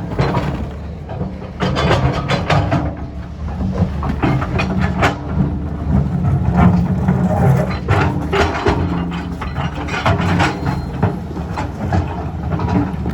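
An engine running steadily, with many sharp clattering knocks and bangs over it throughout.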